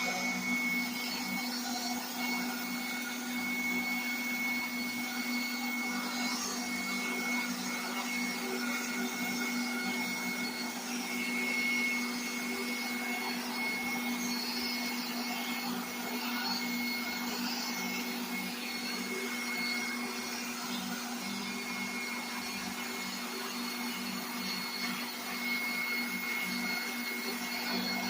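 Sand-O-Flex flap sanding wheel spinning on a power tool against carved wood: a steady motor whine over the hiss of abrasive on the wood, swelling and easing a little as pressure changes.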